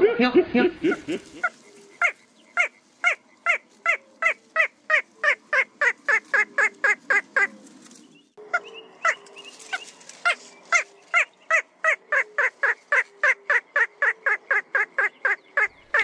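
Little crake calling: a series of sharp, laugh-like notes that speed up as they go, given twice, with the second series starting about eight seconds in.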